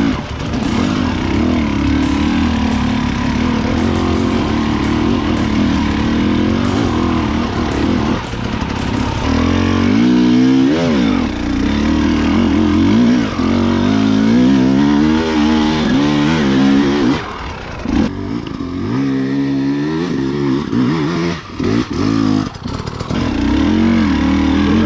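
A 300 cc two-stroke enduro motorcycle engine running under load. It runs steadily at first, then the revs rise and fall repeatedly as the throttle is worked from about halfway on, with short dips where the throttle is shut off twice near the end.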